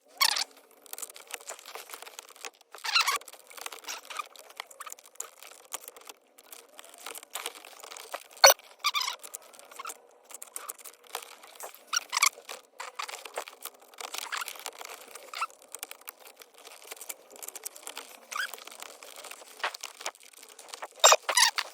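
Thin metal radio release keys being worked into the slots of a car radio in the dash: irregular scraping, squeaking and clicking of metal on metal and plastic, with a sharp click about eight seconds in and a burst of scrapes near the end.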